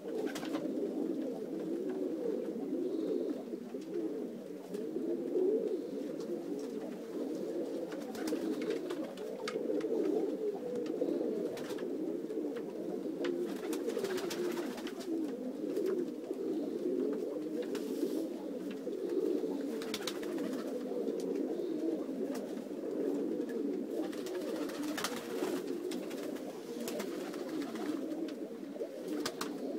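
Domestic pigeons cooing continuously, many low coos overlapping into a steady murmur, with a few faint short clicks now and then.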